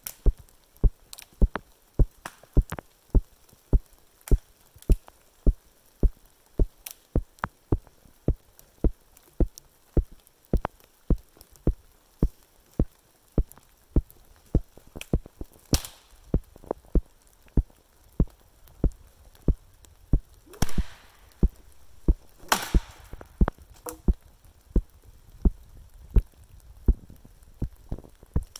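Water dripping steadily close to the microphone, sharp ticks about twice a second, in a rain-soaked forest. About halfway through and again later come a few longer crackling, rustling noises, like dead branches being snapped or handled.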